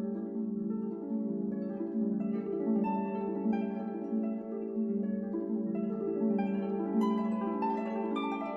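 Background music of plucked harp-like notes in quick rippling succession.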